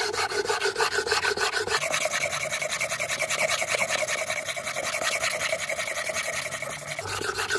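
A scissor blade, the scissors taken apart, rubbed rapidly back and forth while held flat against a coarse reddish sharpening stone, a steady rasping scrape of several strokes a second. The dull, worn blade is being ground to restore its edge.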